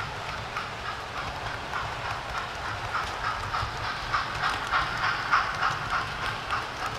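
Model trains running on the layout track: rapid clicking of the wheels over the rail joints, getting louder about four seconds in as a rake of model coaches passes close by, over a low steady hum.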